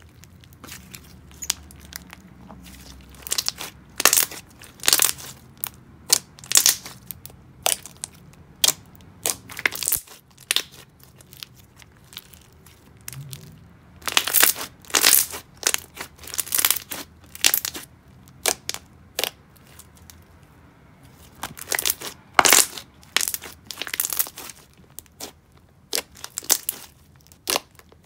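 Thick, glossy semi-floam slime with foam beads being stretched, squeezed and poked by hand, giving runs of irregular crackling clicks and pops. The clicks begin a few seconds in and come in clusters with short lulls between.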